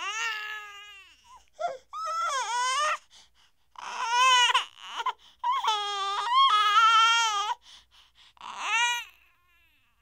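A baby crying in a series of wavering wails separated by short pauses for breath. The longest cry lasts about two seconds and falls a little past the middle.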